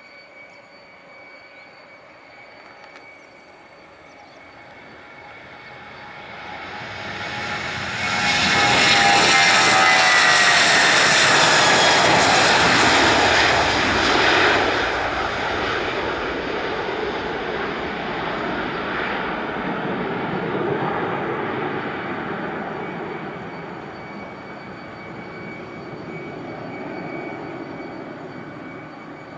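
Boeing 737-800's CFM56-7B turbofan engines at takeoff thrust as the jet rolls past and lifts off. The roar builds to a loud peak about eight to fourteen seconds in, with whining tones falling in pitch as it passes, then fades slowly as the aircraft climbs away.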